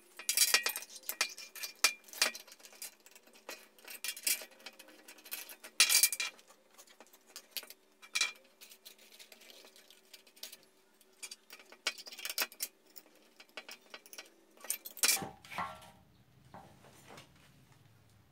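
Metal parts and hand tools clinking and knocking in an irregular series of sharp taps, some ringing briefly, as in hand-assembling metal parts.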